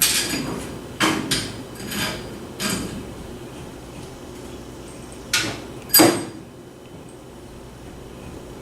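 Metal tree stand parts clanking and knocking as the front support is fitted onto the platform. There are several knocks in the first three seconds, then two louder ones about five and six seconds in.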